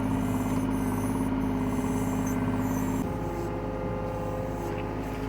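Diesel engine of a compact excavator running steadily; its note shifts slightly lower about three seconds in.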